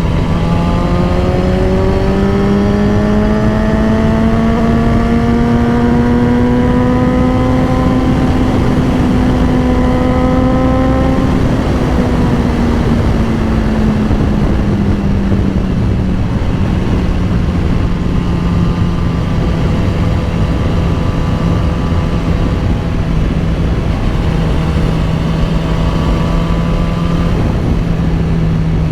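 2010 BMW S1000RR's inline-four engine running under way. Its note rises slowly for about ten seconds as the revs climb, drops back over the next few seconds, then holds steady, over constant wind and road noise.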